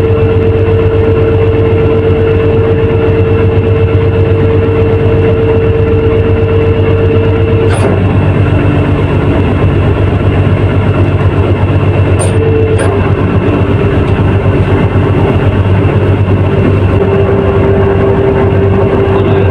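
Fishing boat's engine running with a loud, steady low drone and a steady whine that cuts out about eight seconds in and comes back a little lower around twelve seconds. A few sharp clicks are heard about eight and twelve seconds in.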